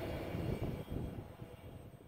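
Low rumble of a freight train's wheels on the rails fading away as the end of the train moves off down the track.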